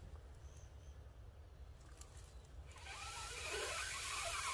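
Breath blowing into a smouldering bundle of dry grass tinder to coax the ember into flame: a long steady rushing hiss starting a little under three seconds in, after a few faint crackles of the dry grass being handled.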